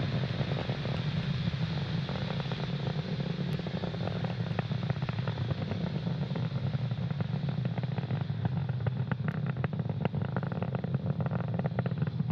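Falcon 9 first stage's nine Merlin 1D engines heard from the ground during ascent: a steady low rumble with a dense crackle running through it.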